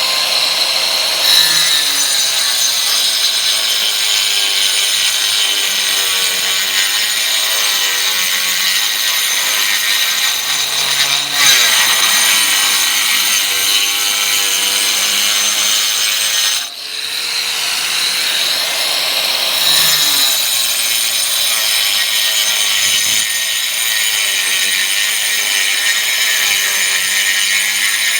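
A power tool runs steadily under load with a high, whining cutting sound. It drops off briefly about seventeen seconds in, then picks up again.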